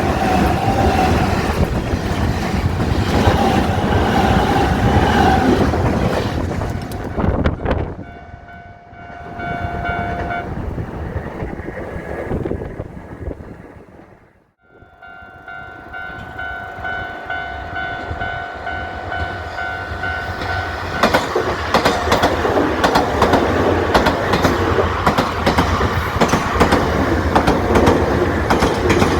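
Electric commuter trains passing over a level crossing, wheels clattering on the rails, while the crossing's warning alarm rings with a steady tone. The first train fades out about 8 seconds in. The alarm stops briefly a little after 10 seconds and starts again at about 15 seconds. A second train rushes past from about 21 seconds on.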